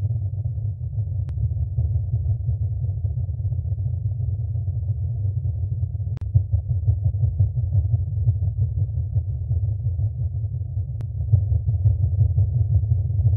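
Steady deep rumbling drone with nothing high in it, and three faint clicks about five seconds apart.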